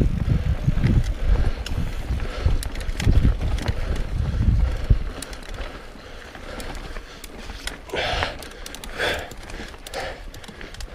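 Mountain bike riding over rough trail: wind buffeting the camera microphone and rattling clicks and knocks from tyres and bike for the first half, then quieter rolling with short puffs of the rider's hard breathing about once a second near the end.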